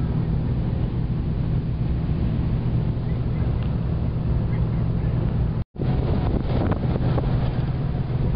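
Vehicle engine running steadily with tyre and wind noise, heard from inside the cabin. About two-thirds of the way through, the sound cuts out completely for a split second at an edit, then the same drive resumes with rougher rumble and buffeting.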